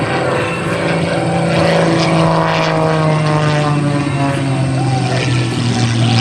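Super Chipmunk aerobatic plane's piston engine and propeller running loud on a low pass. The pitch falls as the aircraft goes by, then holds steady as it pulls up into a climb.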